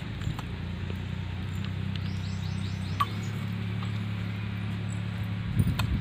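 A steady low machine hum, like a motor running, with a few faint clicks and a quick run of short high chirps about two seconds in.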